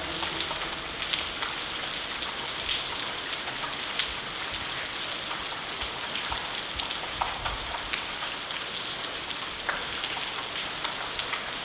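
Water falling like heavy rain from a ventilation shaft in the tunnel roof, splashing onto the tunnel floor: a steady hiss of many drops with scattered sharper splats.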